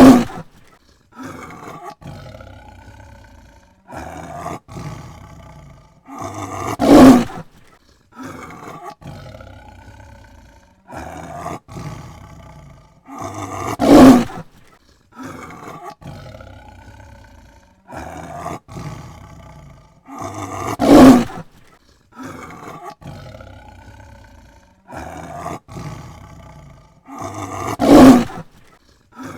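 Tiger roaring: five loud roars about seven seconds apart, with quieter calls in between.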